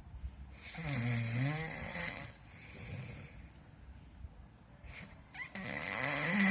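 A person snoring: two loud, rasping snores about four seconds apart, with a fainter snore and quiet breathing in between.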